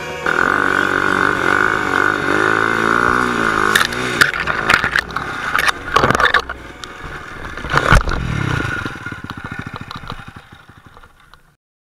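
Husaberg FE 501 single-cylinder four-stroke enduro engine running under throttle with its pitch rising and falling. From about four seconds in comes a series of knocks, clatter and scrapes as the bike goes down in the snowy brush, the loudest thump about eight seconds in. Afterwards the engine keeps running and fades out near the end.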